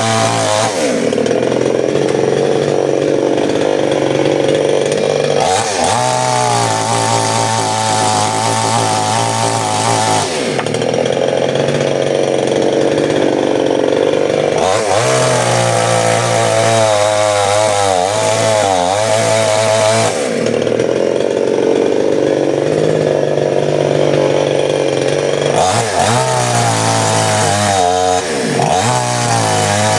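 Large two-stroke chainsaw sold as a Stihl 799, running hard and cutting wood. The engine pitch wavers and dips, then steadies again, in stretches of a few seconds each.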